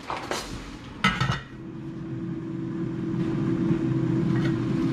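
Metal cookware clinks twice, lid or utensil against the pot, over vegetables sautéing in the pot. A steady low hum then starts and grows louder over the next couple of seconds.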